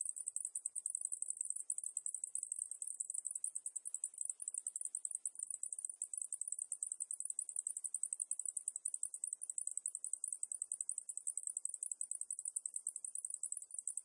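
Cicadas calling in a continuous, high-pitched, very rapidly pulsing buzz.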